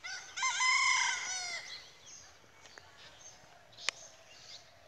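A rooster crows once: one loud call lasting about a second and a half that falls in pitch at the end. A single sharp click follows about four seconds in.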